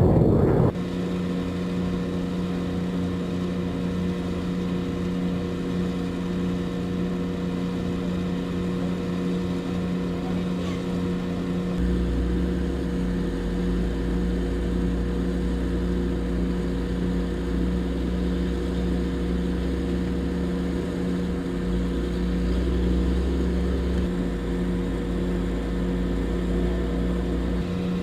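Heavy vehicle engine running steadily at a constant speed, with a deeper rumble joining about twelve seconds in. A loud rushing noise cuts off abruptly in the first second.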